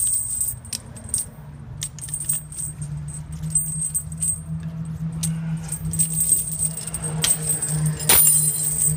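Heavy steel tire chain links clinking and jangling as a cross chain and its hooks are handled and worked with a long-handled tire chain plier, with a sharper metal clank near the end over a steady low hum.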